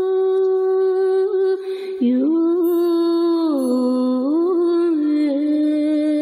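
Slow soundtrack music: a long held note, then from about two seconds in a melody whose notes glide up and down into one another.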